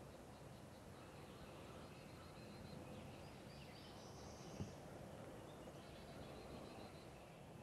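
Quiet woodland ambience: faint songbirds trilling high in the distance over a steady low hum, with one short soft click a little past the middle.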